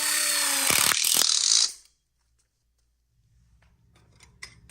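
Milwaukee cordless impact driver driving a screw into steel frame tubing, running with a rapid hammering rattle over its motor whine, then stopping a little under two seconds in. Faint light metal clicks follow near the end.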